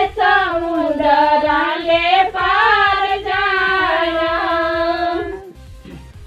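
Women's voices singing a wedding folk song (mangal geet) together in long, drawn-out notes, breaking off about five seconds in.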